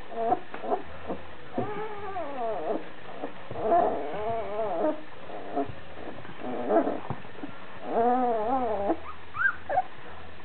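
Puppies whining and yelping while they play: a string of short, high calls, several with a wavering pitch that rises and falls.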